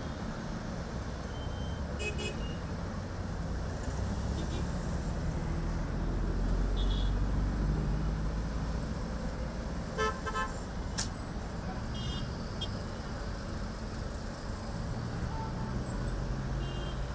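City street traffic: car and minibus engines and tyres in a steady rumble, which grows louder as vehicles pass through the middle. Short car-horn toots come several times, the strongest about ten seconds in.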